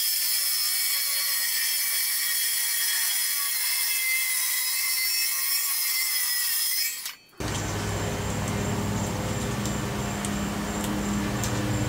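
Circular saw cutting through a thin fiberglass-skinned Nidacore honeycomb panel, a high-pitched whine with cutting noise. It cuts off suddenly about seven seconds in, and a steady low hum with a few sharp ticks follows.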